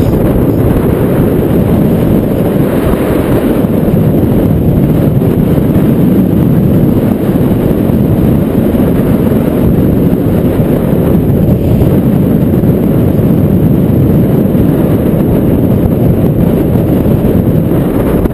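Wind buffeting the camera microphone: a loud, steady low rumble with no let-up.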